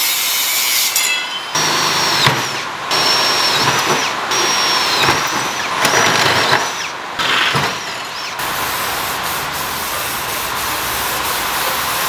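Power tools working steel bar: an angle grinder cutting, then a cordless drill boring holes, in short bursts each with a high whine. Toward the end comes a steady hiss, which fits an aerosol spray can painting the bars.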